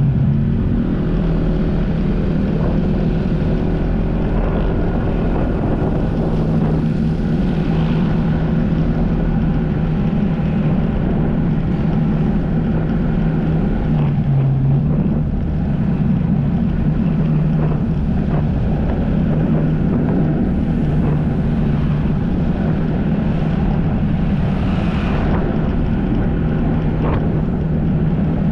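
Jet ski engine running steadily at speed, its pitch dipping briefly twice as the throttle eases, with wind buffeting the microphone.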